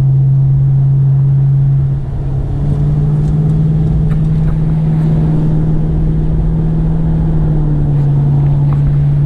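Ford Crown Victoria V8 droning steadily at highway cruise, heard from inside the car along with low road rumble. Its pitch steps up about two and a half seconds in and drops back near the end.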